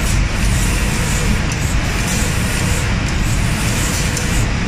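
Automatic painting line for cabinet doors running: a steady, loud rushing noise.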